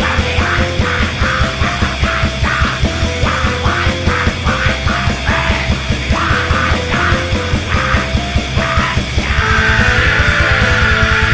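Black metal recording: distorted electric guitars and pounding drums, loud and dense. About nine seconds in, the drumming switches to a faster, tighter beat.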